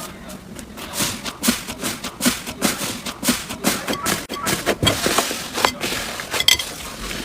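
Slime being squeezed and worked by hand, giving an irregular run of sharp wet clicks and pops, about three a second.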